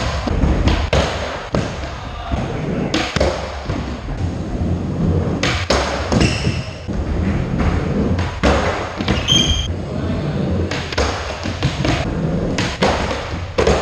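Skateboard wheels rolling on a concrete skatepark floor with a series of sharp clacks and thuds from the board, including the board on a flat box ledge about six seconds in and the board hitting the floor after a bail.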